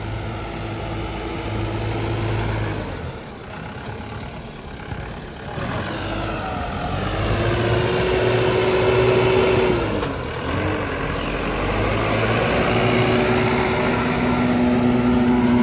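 Guard World WD754 tractor's four-cylinder turbocharged diesel engine running steadily while driving a rotavator through dry soil. Its pitch rises after about six seconds and drops back near ten seconds.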